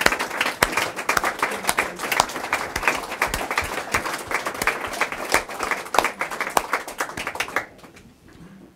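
Audience applauding, a dense patter of many hands clapping that dies away about seven and a half seconds in.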